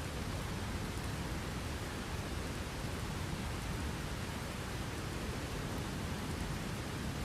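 Steady heavy rain, an even hiss with no distinct thunderclap.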